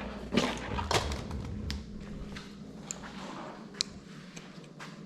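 A few faint, sharp clicks spread a second or so apart, with light handling noise at the start.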